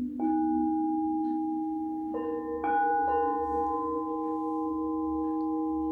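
Singing bowls struck about four times in the first three seconds, at different pitches. Each strike rings on in long, steady tones that overlap and hang on.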